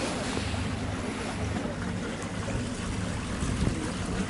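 Wind buffeting the microphone and water lapping, over a steady low hum.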